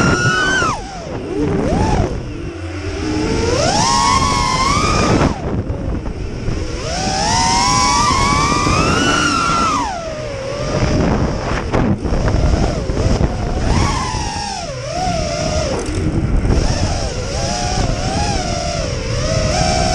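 Quadcopter drone's electric motors whining, the pitch rising and falling again and again as the throttle is pushed and eased.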